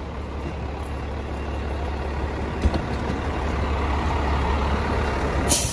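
FDNY fire engine's diesel idling steadily, getting louder as it comes closer, with a sharp click partway through and a short burst of noise near the end.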